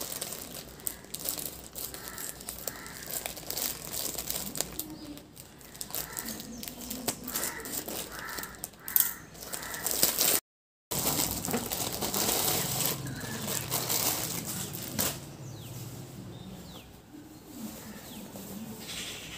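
Plastic courier pouch crinkling and rustling as it is torn open and a cloth dress is pulled out and shaken. There is a brief gap of silence about halfway.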